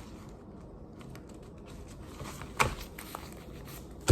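Paper banknotes being handled and sorted: light crinkling and small clicks, with a sharp snap of paper about halfway through and a louder one at the very end.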